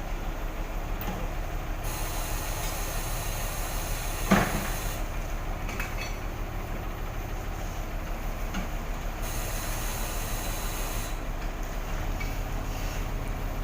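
Concrete pump truck running steadily on site, with a hiss that cuts in and out several times and one loud knock about four seconds in.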